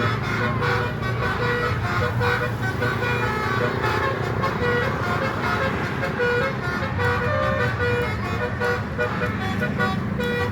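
Bus 'telolet' musical air horn playing a tune of short notes stepping up and down in pitch, over a steady low engine and traffic rumble.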